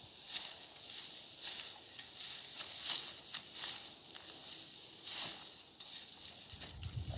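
Dry cereal stalks rustling in a run of short, hissy swishes, about one or two a second, like a crop being cut or gathered by hand. A low rumble comes in near the end.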